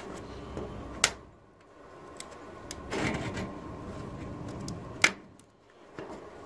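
A removed Pontiac Trans Am pop-up headlight motor being handled: two sharp plastic clicks, about a second in and about four seconds later, with a short scraping rustle between.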